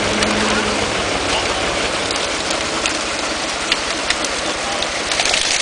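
Steady splashing and churning of water from a mass of carp thrashing in a crowded seine net, with a motor running low underneath. A brighter splash comes near the end.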